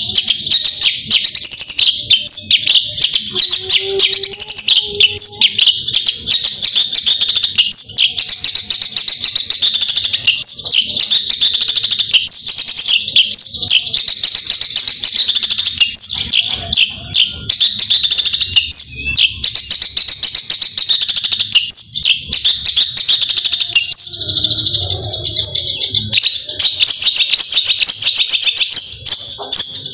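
Long-tailed shrike (cendet) in full song: a loud, rapid, almost unbroken run of high chirps and whistles in the fast 'tembakan' bursts of a bird that is singing freely (gacor). The song breaks off briefly about three-quarters of the way through, then resumes.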